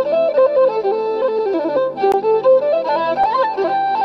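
Instrumental music: a lead melody moving in short steps from note to note over a low sustained accompaniment, with no voice.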